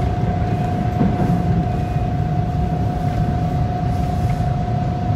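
TTC Bombardier T1 subway train running through a station, heard from inside the car: a steady low rumble of wheels on rail, with one steady high tone held throughout.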